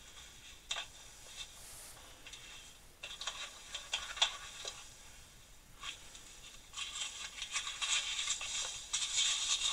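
Small metal tools being handled and rummaged in a wooden drawer: scattered light clicks and rattles, sparse at first and getting busier about two-thirds of the way through.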